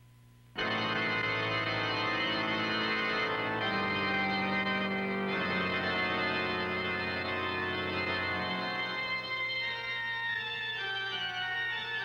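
Organ music: sustained chords that come in suddenly about half a second in, after a moment of near silence. The bass notes change a few times and drop away about two-thirds of the way through, leaving the higher chords.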